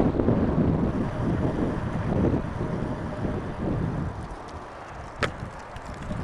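Gusty wind buffeting the microphone of a bicycle-mounted action camera while riding, easing off after about four seconds. A single sharp click comes about five seconds in.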